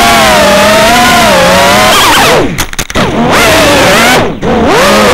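FPV quadcopter's brushless motors and propellers whining loudly, the pitch sliding up and down with the throttle. About halfway through and again near the end the whine falls in pitch and briefly drops away as the throttle is cut, then climbs back as it is punched again.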